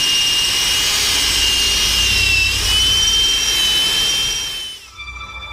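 Electric drill running at high speed with a steady high-pitched whine, its pitch dipping briefly about two and a half seconds in as it bites. It stops near the end, and music comes in.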